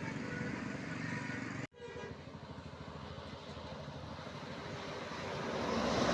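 Roadside traffic noise: large vehicles, likely buses, running past with no horn sounding. The sound cuts out for an instant about a second and a half in, then grows louder near the end as another vehicle approaches.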